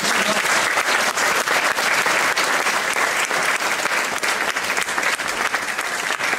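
An audience applauding, many hands clapping in a dense, steady patter.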